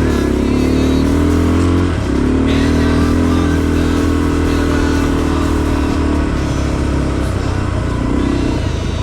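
Motorcycle engine running steadily while riding, with a brief drop in pitch and level about two seconds in, like a gear change.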